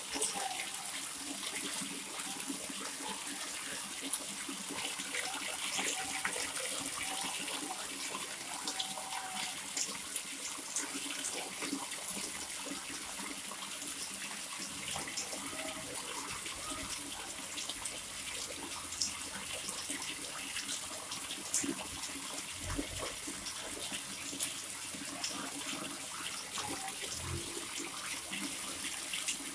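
Water pouring steadily from a spout (pancuran) and splashing, with scattered sharper splashes standing out now and then.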